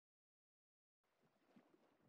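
Near silence: the sound track is completely silent for about a second, then there is only a very faint hiss.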